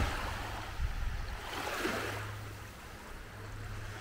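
Small waves lapping and washing onto a shelly sand beach, the wash swelling about two seconds in, over a low wind rumble on the microphone that fades.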